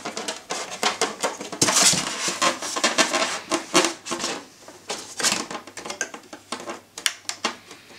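Close handling noise from a quadcopter's plastic frame and landing-gear legs: irregular clicks, taps and light knocks as rubber O-rings and cables are worked into place, with a stretch of rubbing about two seconds in.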